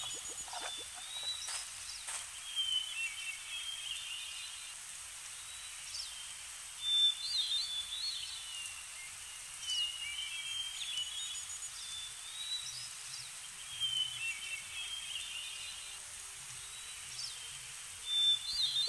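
Birds chirping in short, high twittering phrases that recur every few seconds over a steady hiss of outdoor ambience.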